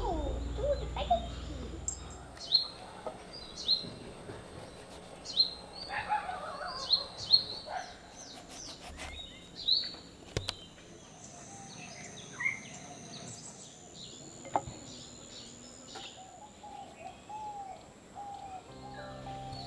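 Birds chirping in the garden: a short, falling chirp repeated every second or so, with a few sharp clicks between the calls.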